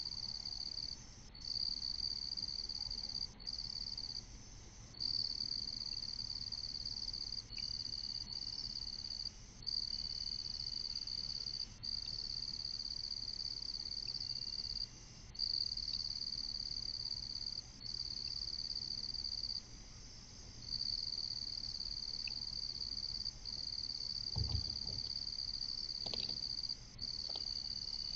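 Night insect chorus: a steady high-pitched trill that breaks off briefly and starts again every second or few seconds.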